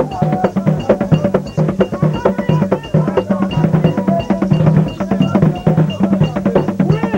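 Haitian Vodou drum ensemble of tall hand-played barrel drums beating a fast, steady rhythm, with voices singing over them.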